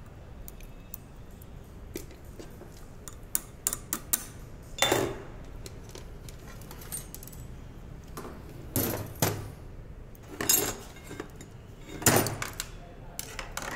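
Steel roller chain and small metal parts of an 11 kV circuit breaker's operating mechanism clinking and rattling as they are handled on a metal workbench. Light scattered clicks at first, then several louder clattering rattles from about five seconds in.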